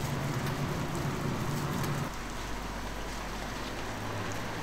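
Hotteok frying in oil on a griddle, a steady sizzle over a low hum; the low hum changes abruptly about two seconds in.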